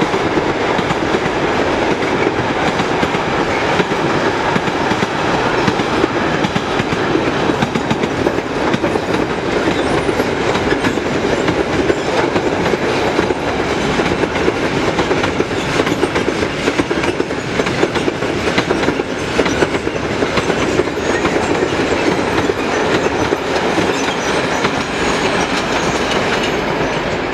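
Freight train wagons rolling past at speed, a steady rumble of steel wheels on rail with a clickety-clack over the rail joints.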